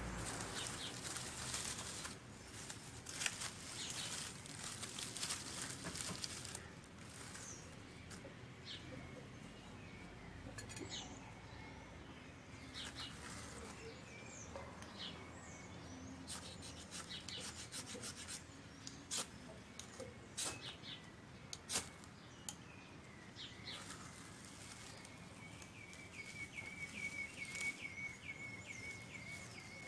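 Small birds chirping, with scattered clicks and knocks throughout, busiest in the first few seconds. A thin steady trill joins near the end.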